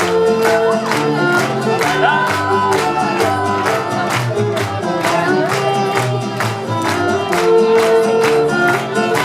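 Mariachi band playing: a violin melody of held notes over a fast, even strummed rhythm.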